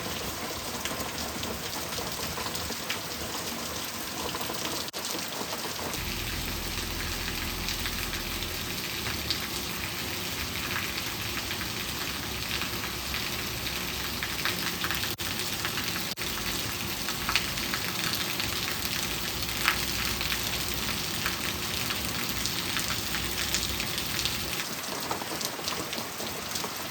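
Heavy rain falling hard and steady, with a dense hiss of drops and sharp individual drop ticks. A low rumble sits underneath from about six seconds in until near the end.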